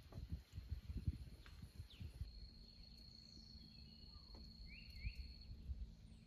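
Faint forest ambience: low rumbling knocks at first, then a thin steady high tone for a few seconds, likely an insect, with a couple of short rising bird chirps.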